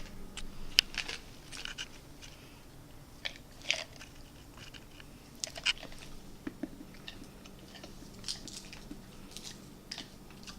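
Someone chewing and crunching a hard, powdery Pez-like candy tablet close to the microphone, in irregular sharp crunches, the loudest about a second in.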